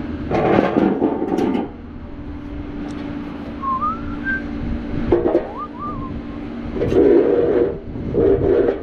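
A person whistling a few short rising notes, against louder bursts of noise at the start and near the end and a steady low hum.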